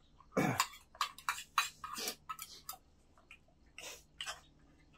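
Chopsticks and spoons clicking and clinking against bowls and the cooking pan during a meal: many short, irregular ticks, with a heavier knock about half a second in.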